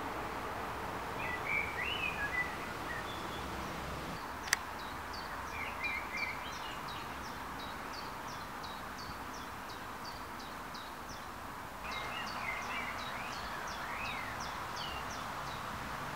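Small birds singing outdoors: short chirping phrases, and a high, short note repeated about twice a second through most of the stretch, over a steady background hiss. A single sharp click about four and a half seconds in.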